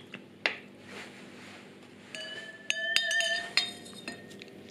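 Small glass Erlenmeyer flask clinking against a glass beaker as it is lowered into the water: a light knock about half a second in, then from about two seconds several sharp clinks with a clear ringing tone.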